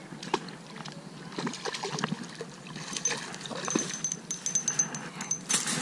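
Hooked trout splashing in shallow creek water at the bank as it is pulled in, in short irregular splashes. A thin, high, rapid chirping or ticking comes in about halfway through.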